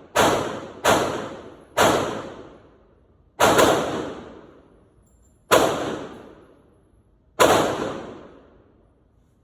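Single pistol shots from a P80 Glock-pattern handgun fired one at a time, about seven in all at uneven intervals, two of them close together around three and a half seconds in. Each shot rings off for about a second.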